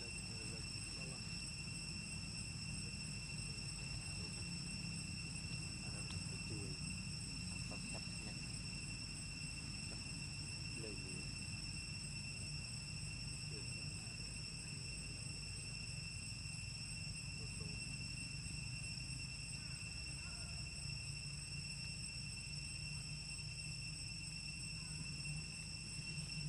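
Steady high-pitched drone of insects, cicadas or crickets, holding one pitch without a break, over a low background rumble.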